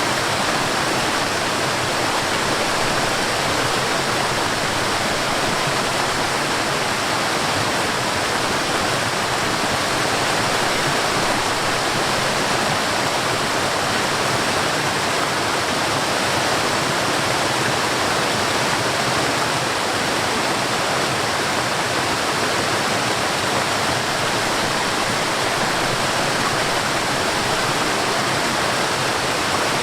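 Mountain stream water rushing and splashing over a waterfall, a steady, even rush with no change.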